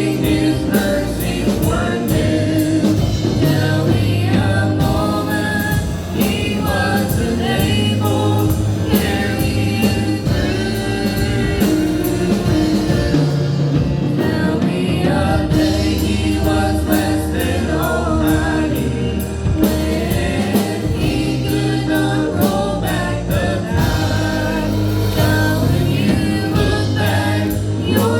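Gospel song: a vocal group singing together over instrumental backing with a steady beat.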